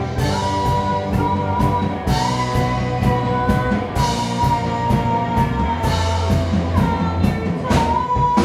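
Live rock band playing: a drum kit keeps a steady beat with regular cymbal strokes over a bass line, under a long held high melody note that bends slightly now and then.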